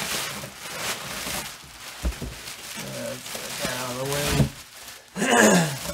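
Plastic bubble wrap rustling and crinkling as it is pulled out of a cardboard shipping box, with a couple of dull thumps and short bits of voice.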